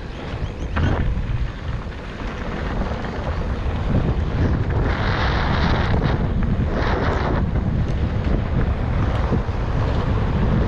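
Wind buffeting the microphone of a camera riding along on a mountain bike, a steady low rumble, with two brief hissing swells about five and seven seconds in.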